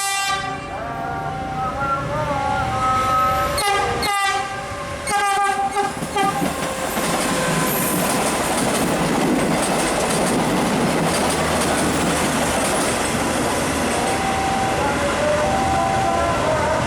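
A train horn sounding several blasts, the first one long, then the steady rumble and rail clatter of a train running past. Near the end a two-note warning tone starts alternating over the train noise.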